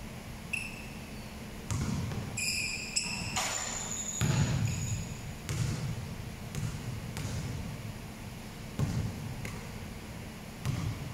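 Basketball bouncing on an indoor court floor, about eight irregular thuds with the loudest about four seconds in, echoing in a large gym. Two short high squeaks come about half a second and two and a half seconds in.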